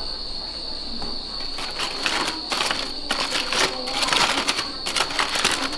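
Aluminium foil crinkling and rustling as hands pull open a foil wrapping, in a dense, irregular run of crackles starting about a second and a half in. A steady high-pitched tone sounds underneath throughout.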